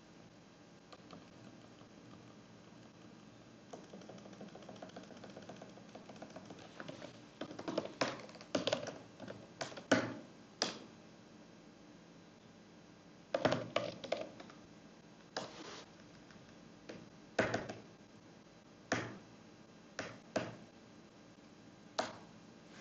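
Typing on a computer keyboard: irregular key clicks, some in quick runs and some single, louder strokes, as shell commands are entered.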